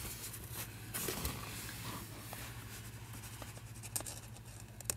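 Faint scratching and handling sounds as super glue is worked onto a small square of cloth-topped rubber mouse pad, with light clicks about four seconds in and near the end, over a steady low hum.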